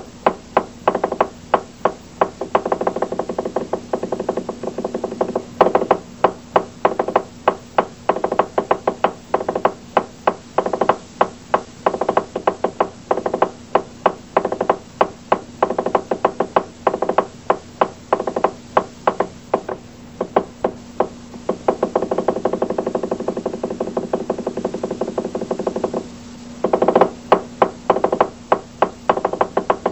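Chinese festival percussion, drum with cymbals and gong, beaten in a fast steady rhythm of about four strikes a second, with ringing between the strikes. It breaks off briefly near the end and starts again.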